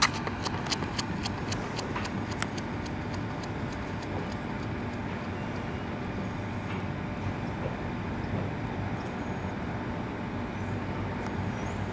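Quick footfalls of a sprinter's shoes on a rubber track as he drives out of a crouched start, about four steps a second, fading as he pulls away within the first two to three seconds. A steady outdoor noise runs underneath.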